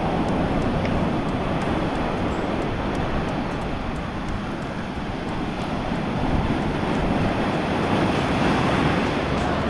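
Ocean surf breaking and washing over the sand, with wind buffeting the microphone as a steady low rumble.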